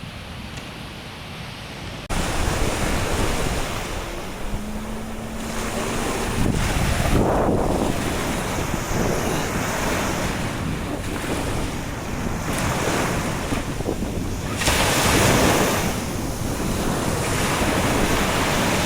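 Sea waves breaking and washing onto a beach in repeated surges, with wind buffeting the microphone.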